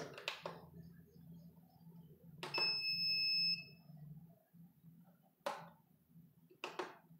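FlySky TH9X transmitter's built-in buzzer sounding one steady electronic beep about a second long, a couple of seconds in, as the OpenTX throttle-not-idle warning comes up. A few soft clicks before and after it.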